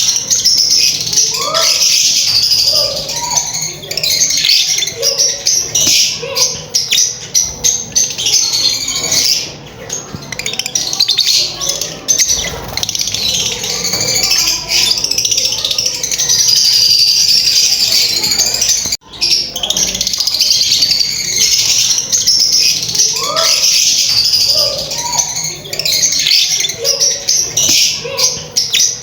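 Many lovebirds chattering together in a dense, continuous stream of shrill high chirps, with a few lower rising calls mixed in. The sound cuts out briefly about two-thirds of the way through.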